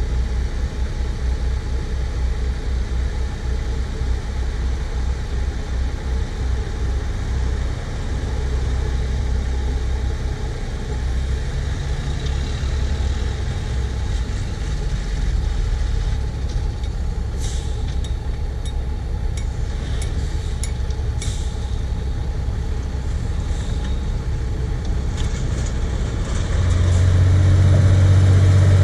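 Heavy diesel engine of a tipper truck running steadily while its trailer tips a load of earth. A few sharp knocks come about two-thirds of the way through, and near the end the engine gets louder.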